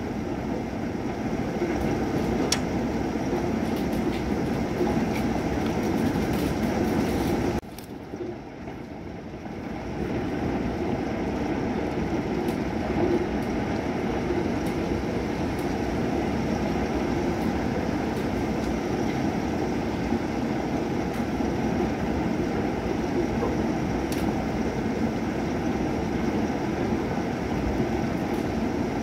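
Steady rain during a thunderstorm: an even, rushing noise with scattered drop clicks. It drops away suddenly about seven seconds in and builds back over the next two seconds.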